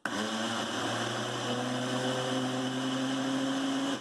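Countertop blender motor run in a single pulse of about four seconds, mixing cornmeal cake batter after the baking powder has gone in. Its pitch steps up a little partway through, and it stops sharply at the end.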